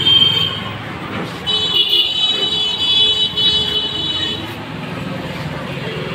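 Street traffic noise, with a high, steady vehicle horn sounding for about three seconds starting a second and a half in.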